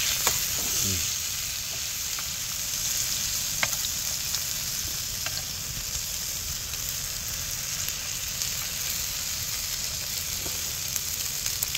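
Assorted beef intestines and green onions sizzling steadily on a hot round grill pan, with a few light clicks of chopsticks and tongs against the pan.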